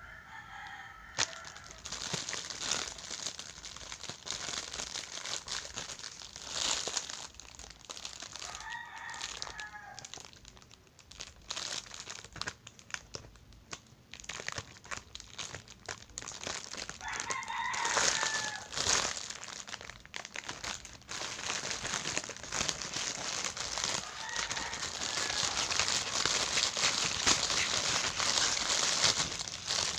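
Thin plastic bag crinkling and rustling as it is handled and opened, loudest near the end. A rooster crows several times, each crow about a second and a half long.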